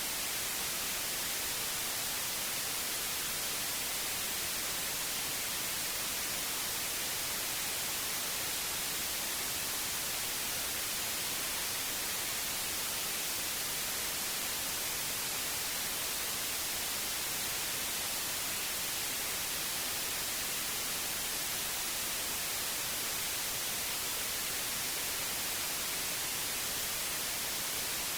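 White noise: a steady, even hiss, brightest in the treble, with no change in level.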